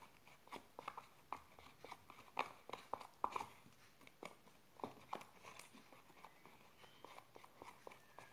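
Slime being mixed by hand: a quiet run of irregular sticky clicks and squelches, busiest in the middle.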